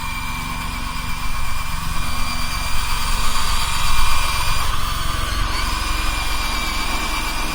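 Electric gear motors of a radio-controlled model construction machine running with a steady high whine, which stops briefly just past the middle and then starts again, over a low rumble.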